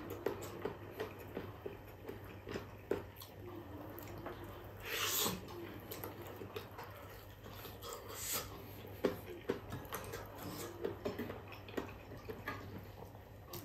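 Close-up mouth sounds of eating beef shank meat off the bone by hand: soft wet chewing and lip smacks, with short sucking slurps about five seconds in and again near eight seconds.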